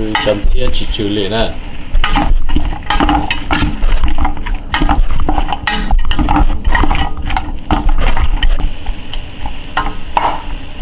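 Wooden spoon stirring diced deer meat and onions in a metal pressure cooker pot, scraping and knocking against the pot many times, while the meat sizzles as it browns.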